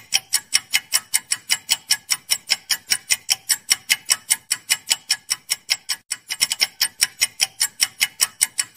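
Countdown-timer clock-ticking sound effect: even, sharp ticks about four a second, with a brief break in the rhythm and a quick flurry about six seconds in.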